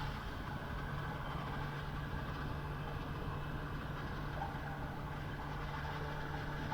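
2021 Kawasaki ZX-10R's inline-four engine idling steadily, its note holding even without any revving.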